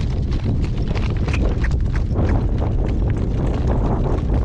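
Shod horse's hooves clip-clopping on a hard surface, a string of irregular strikes over a steady low rumble.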